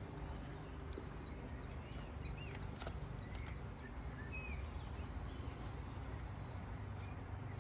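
Small birds chirping, short rising and falling notes scattered throughout, with a few light clicks and a steady low rumble.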